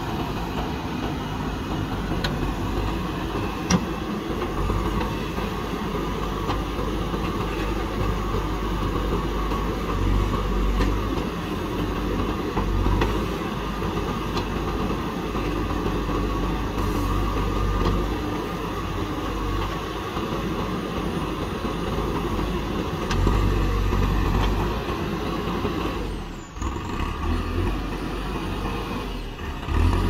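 JCB backhoe loader's diesel engine running under load while the machine digs and moves. The engine note swells and eases with the work, with a sharp click about four seconds in and a brief drop in loudness near the end.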